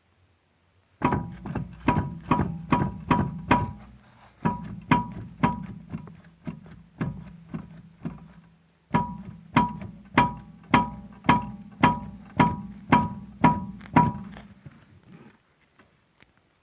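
Worn steering tie rod end on a Skoda Fabia Mk1 knocking as the raised front wheel is rocked back and forth by hand: sharp metallic knocks, about two to three a second, each ringing briefly. They come in three runs with short pauses. The play in the tie rod end is the cause of the knock felt over bumps.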